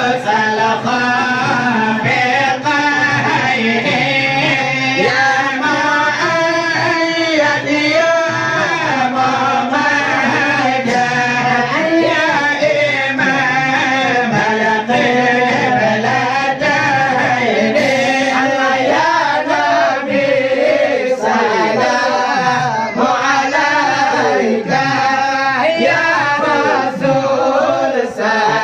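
A group of men chanting Acehnese syair together into microphones: loud, melismatic sung verses with voices gliding up and down.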